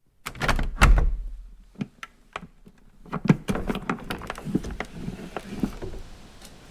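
A phone vibrating on a wooden surface, heard as a run of irregular rattling clicks and knocks against the wood.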